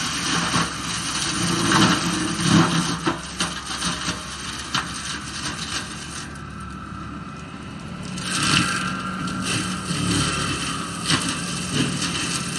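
New Holland skid steer's engine running under load as its forestry mulching head grinds through olive brush and small trees, with repeated cracks and snaps of wood being shredded. The grinding eases for a moment about halfway through, then picks up again.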